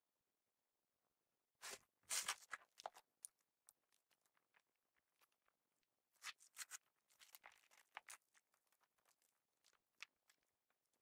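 Purple glitter slime with sequins being pressed and stretched by hand, giving faint short clusters of small clicks and crackles about two seconds in and again around six to eight seconds in, with near silence between.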